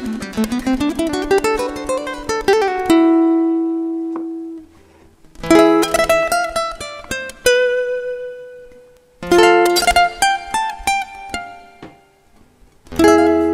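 Solo guitar instrumental music: quick picked runs at the start, then short phrases of plucked notes that ring out and fade, with brief pauses between the phrases.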